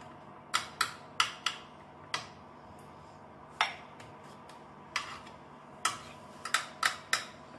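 A spoon knocking and scraping against a ceramic baking dish while tomato sauce is spread over cannelloni: about a dozen sharp, irregular clicks.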